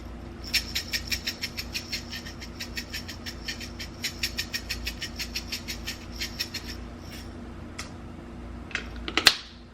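Pepper grinder being twisted to crack fresh black pepper: a rapid, even run of dry clicks, about five a second, for some six seconds, then a few single clicks and a louder knock near the end.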